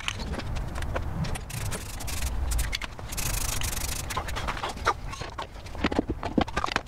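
Aerosol can of Rust-Oleum rust-converting spray paint hissing in spurts, strongest about three seconds in. This is followed by a run of light clicks and taps as the wet-painted metal parts are handled on the paper.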